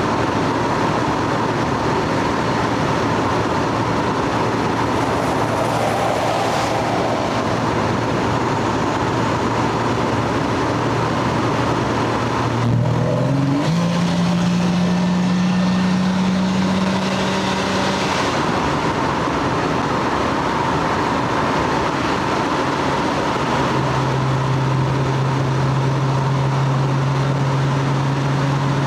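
Stock Lexus GS300's 2JZ straight-six engine and exhaust running at a steady drone. Its pitch steps up about halfway through, holds for several seconds, then drops back, and rises slightly again near the end.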